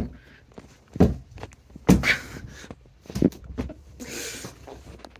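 Handling noise from a hand-held camera being moved about: a few dull thumps spaced about a second apart, with rustling in between.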